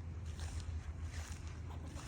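Squirrel calling in a few short, rough chirps, about three in two seconds, over a steady low rumble of wind on the microphone.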